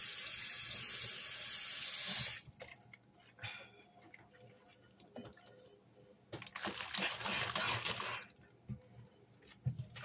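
Water running from a tap into a kitchen sink for about two seconds, then shut off; a second rush of the same kind of hiss comes about six seconds in and lasts about two seconds, with small handling sounds between.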